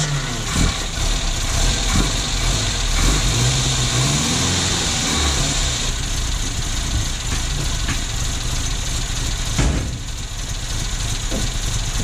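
Datsun 1200's A12 four-cylinder engine running just after starting, idling with a brief rise in revs about four seconds in, under a steady high hiss.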